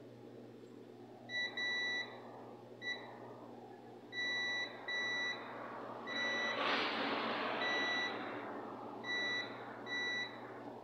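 Digital multimeter's continuity buzzer beeping in short, irregular beeps, about nine of them, as the test probes touch points on a circuit board: the beep signals a short circuit between the points tested. A brief burst of noise swells up about six and a half seconds in.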